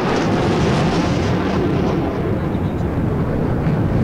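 Sukhoi Su-30MKI fighter jet's twin AL-31FP turbofans roaring steadily as it pulls up into a vertical climb. The higher part of the roar fades from about halfway through as the jet climbs away.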